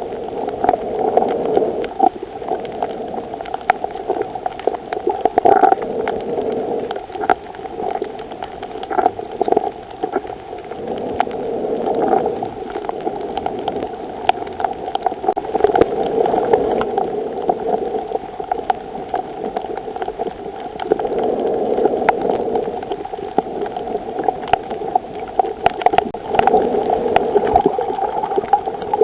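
Underwater sound on a coral reef: a muffled bubbling, gurgling wash of water that swells and fades every few seconds, with scattered sharp clicks and crackles throughout.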